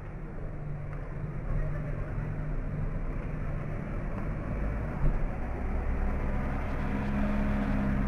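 Steady low rumbling hum with a faint droning tone, growing slightly louder in the second half, and one brief knock about five seconds in.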